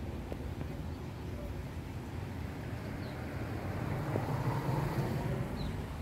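Steady low outdoor rumble, swelling a little about four seconds in.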